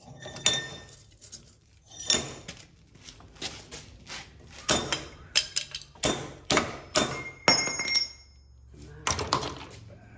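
About a dozen irregular sharp metallic knocks and clinks, some ringing briefly. The loudest, about seven and a half seconds in, leaves a short high ring.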